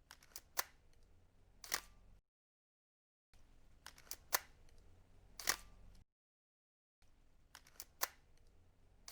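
Camera shutter clicking, a few sharp clicks in each of three short stretches over faint hiss, broken by dead silence between them.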